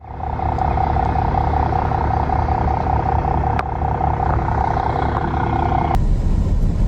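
A heavy vehicle's engine running steadily, with a steady high whine over a low rumble. The whine cuts off about six seconds in while the rumble carries on.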